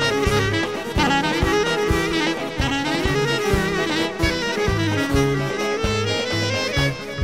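Greek folk dance music: a clarinet plays a winding, ornamented melody with bending notes over a steady drum beat and repeated bass notes.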